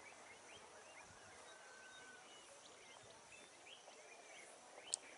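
Faint, scattered bird chirps over low background hiss, with one sharp click near the end.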